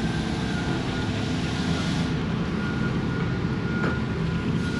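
A large engine of heavy construction machinery running steadily with a low hum, with a faint click about four seconds in.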